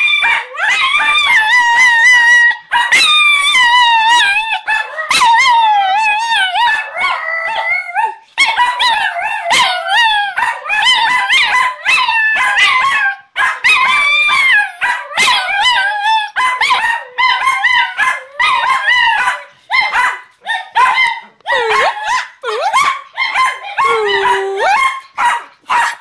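Two Chinese Crested dogs howling together: long, wavering, overlapping howls that slide up and down in pitch. In the second half the howling breaks into shorter howls with brief gaps between them.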